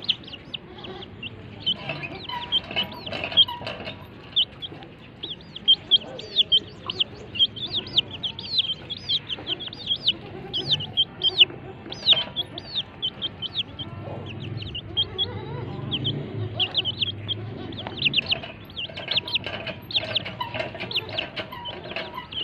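Baby chicks cheeping constantly in rapid, high-pitched peeps. A mother hen's low clucking comes in around the middle.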